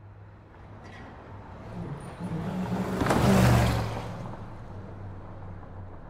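Muscle car speeding past on a highway: the engine and tyre noise grows louder, peaks a little past halfway, then fades as it moves away.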